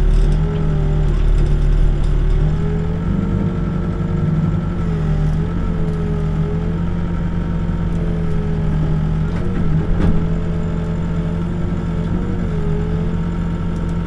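Backhoe's diesel engine running steadily while digging footings, its pitch dipping and rising slightly under the changing load, with a couple of knocks about ten seconds in.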